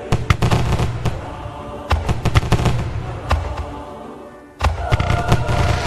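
Aerial fireworks shells bursting in quick succession: sharp bangs over a low rumble, which fades and then returns suddenly with a fresh volley about four and a half seconds in.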